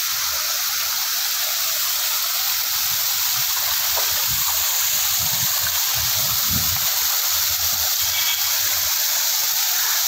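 Small waterfall: a thin sheet of water pouring over a low stone wall and splashing onto rocks below, a steady rushing splash.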